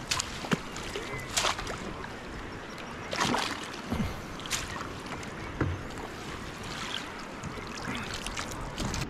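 Water splashing and lapping against a kayak afloat on the ocean, with irregular small splashes and knocks over a steady hiss of water.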